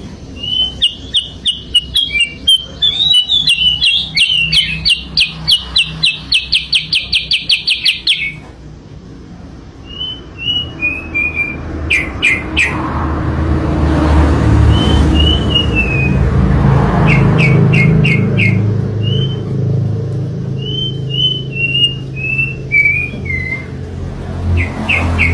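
Sooty-headed bulbul (kutilang) singing: a fast run of sharp repeated chirps for about the first eight seconds, then short descending whistled phrases with a few clicks between them. A low rumble sits underneath from about halfway.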